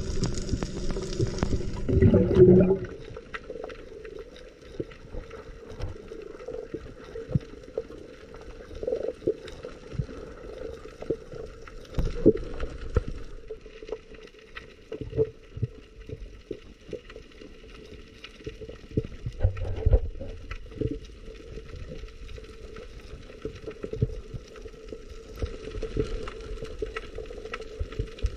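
Muffled underwater sound picked up by a submerged camera: gurgling water with many irregular clicks and knocks over a steady low hum, and a louder rush about two seconds in.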